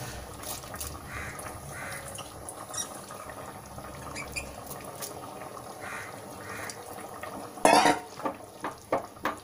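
Coconut milk and rice bubbling in an aluminium pot on a gas stove. About three-quarters of the way through, a wooden spoon goes into the pot and stirs, scraping and knocking against the metal several times.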